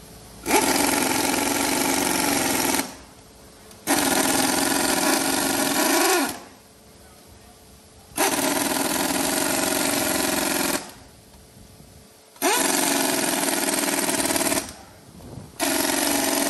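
Impact wrench hammering on a wheel's lug nuts in five bursts of about two seconds each, with short pauses between.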